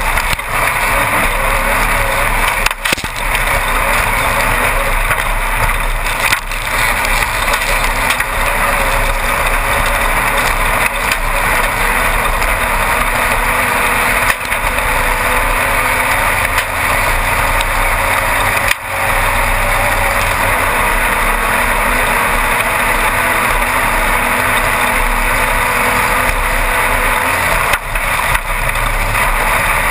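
Engine of a Class 1-1600 desert race buggy, a 1600 cc air-cooled Volkswagen engine, running hard under race load, heard from inside the car together with chassis rattle and rushing noise. The sound is loud and continuous, with a few brief dips.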